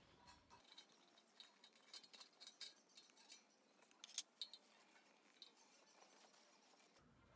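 Faint rustling of a cloth drawstring bag and light metallic clinks and ticks as a small black metal wood-gas stove and a metal grill grate are taken out of it, with one sharper clink about four seconds in.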